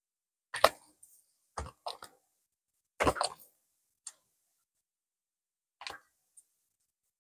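Clear plastic binder sleeve pages crinkling and flapping as a trading-card binder is paged through. About seven short, sharp crackles and taps with silence between them; the loudest comes under a second in.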